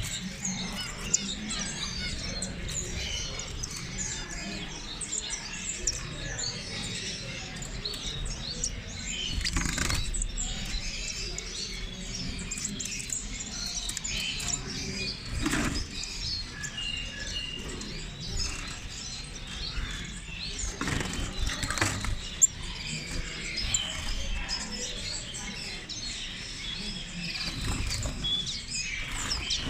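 Many small caged birds chirping and twittering at once, a dense mix of short high calls, with wings fluttering against cages and a few sharp knocks.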